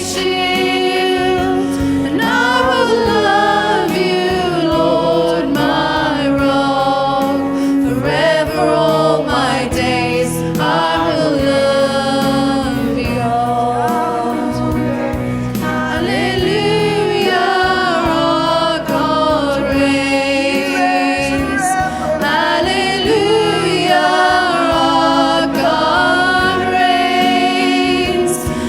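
Christian worship song: several voices singing a melody over sustained instrumental accompaniment.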